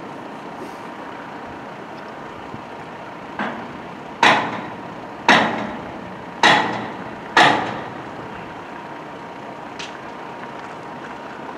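A series of heavy knocks roughly a second apart, one soft and then four loud, each ringing on briefly, over a steady background rumble.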